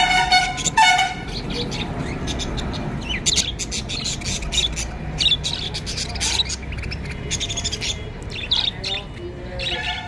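A flock of budgerigars chattering: many overlapping short, high chirps and warbles. Within the first second two loud pitched, honk-like calls stand out above the flock.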